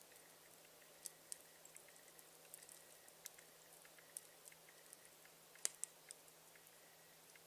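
Campfire burning with faint crackling: scattered sharp pops and snaps from the burning wood at irregular intervals, the loudest about two-thirds of the way through.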